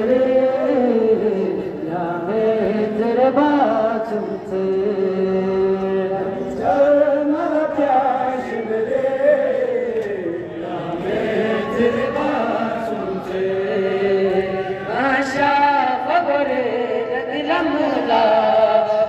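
Men's voices chanting a noha, a Shia mourning lament for Muharram, in a slow melodic line that rises and falls without a break.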